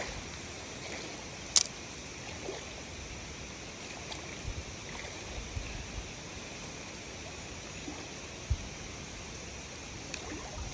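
Steady hiss of flowing water, with a sharp click about a second and a half in and a dull thump near the end.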